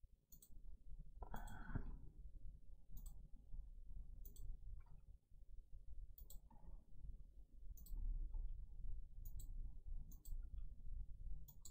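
Faint computer mouse clicks and key taps: about a dozen short, sharp clicks at irregular intervals, over a low room rumble.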